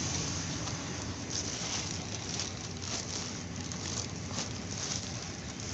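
Plastic sack and food packaging rustling and crinkling as a hand digs through a trash bag, over a steady low hum.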